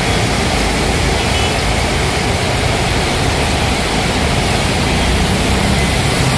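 Heavy rain pouring steadily onto a wet street, with cars and motor scooters passing through the water on the road.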